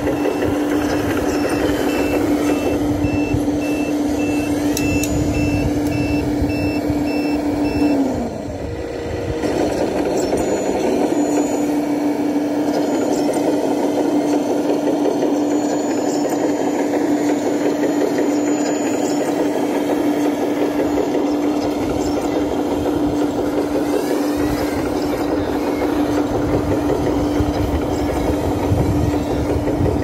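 Radio-controlled scale Caterpillar bulldozer working dirt: a steady hum from its drive and hydraulics, with rough track and ground noise. The hum sags and stops briefly about eight seconds in, then picks up again. A repeated reversing beep sounds through the first third.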